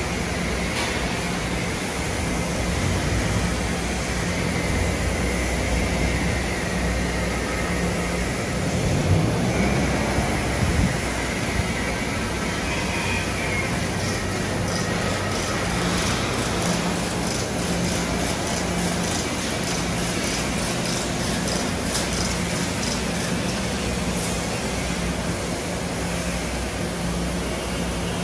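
Steady motor vehicle engine noise with a low hum, and one engine rising in pitch about nine to ten seconds in.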